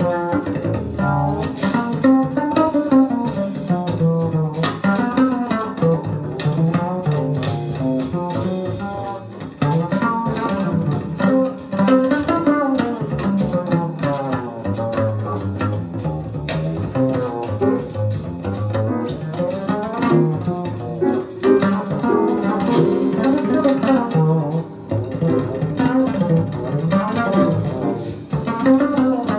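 Recorded music playing through a Sansui AU-317 integrated amplifier and Magnat All Ribbon 4 loudspeakers, a piece with a prominent bass line.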